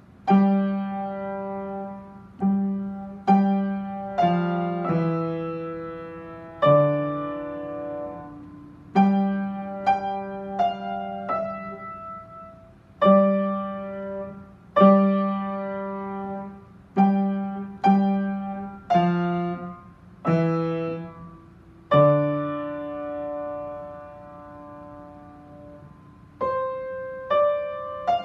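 Upright piano played slowly as a solo piece: separate chords struck every second or two, each ringing and fading away. Near the end one chord is held and left to die out for several seconds before quicker notes resume.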